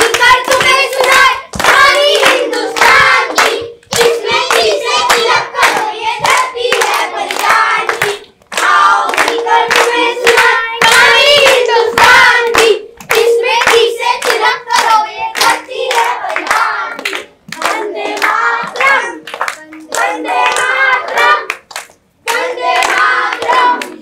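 A group of children singing together while clapping their hands in a steady rhythm, with short breaks between lines of the song.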